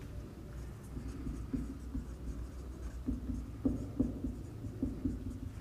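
Marker pen writing on a whiteboard: a run of short, irregular strokes, coming thicker from about three seconds in.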